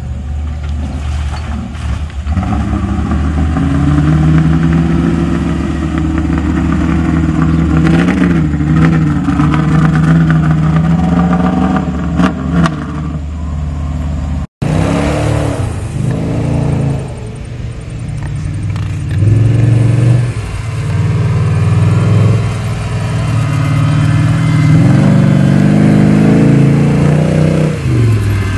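Off-road 4x4 engine revving hard and easing off again and again as the truck drives over a muddy, rutted grass slope, its pitch rising and falling. The sound cuts out for an instant about halfway through.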